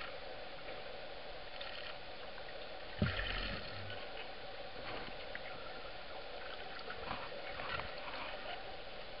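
Underwater sound heard through a camera housing while a leopard seal feeds on a penguin: a steady hiss with scattered clicks and crackles. One loud dull thump with a brief low rush of water comes about three seconds in.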